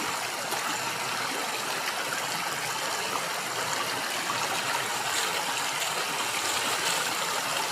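River water flowing steadily, an even rushing noise.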